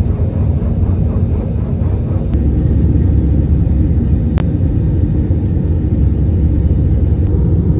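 Airliner cabin noise: a loud, steady low rumble of the engines and airflow, with a single sharp click about halfway through.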